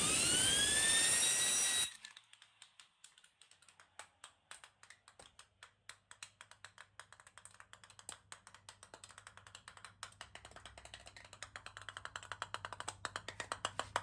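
Compressed-air blow gun hissing into a 3D-printed plastic fan wheel, with a whine that rises in pitch as the wheel spins up. The air cuts off about two seconds in. After that the loose wheel clicks and rattles on the tile floor, the clicks coming faster and louder toward the end.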